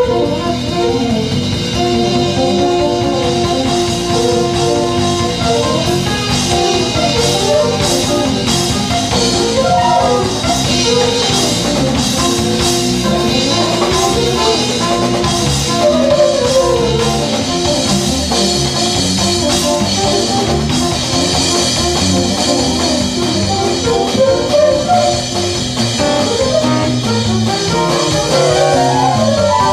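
Small live band playing: drum kit and electric guitars with keyboard, a lead line moving through held notes and quick runs.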